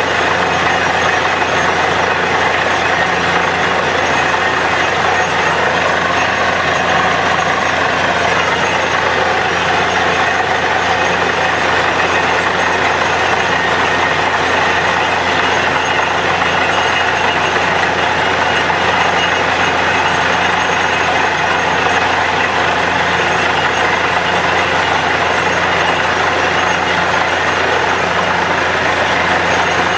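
Truck-mounted borewell drilling rig running steadily at work, its engine and air compressor making a loud, unbroken drone while water and rock cuttings gush out of the borehole.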